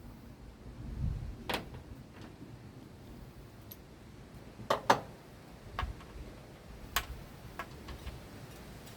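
Scattered clicks and knocks of hand tools and metal parts being handled during engine work, with a low thump about a second in and a sharp double click about five seconds in, the loudest.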